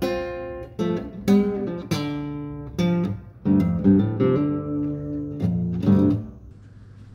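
Guitar music: single picked notes that ring out one after another, stopping about six seconds in.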